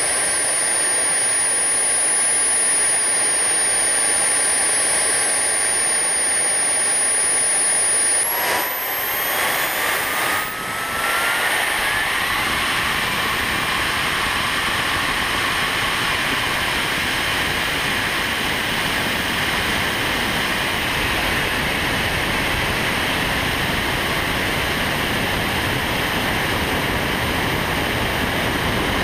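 Motor and propeller of a Tornado FPV model plane, heard from a GoPro on the plane's nose. A thin high whine holds steady at first, then the motor spools up with a rising whine about a third of the way in. It then runs steadily at high throttle, with a loud rush of air and propeller noise as the plane flies.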